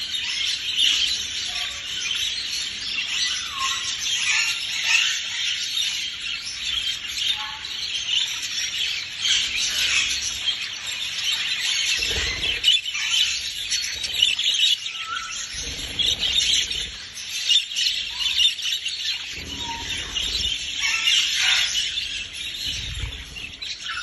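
Budgerigars chattering and warbling, a dense unbroken stream of short high chirps.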